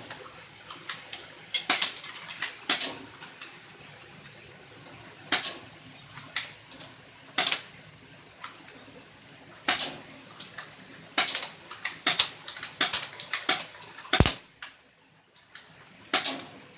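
Airsoft gun firing a long string of sharp snapping shots at uneven intervals, some in quick succession, with one deeper thump about 14 seconds in.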